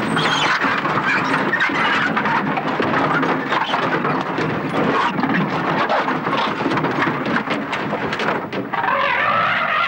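Land Rover being rammed and shoved by a charging elephant's tusks: loud, unbroken crashing and scraping of metal with many knocks throughout.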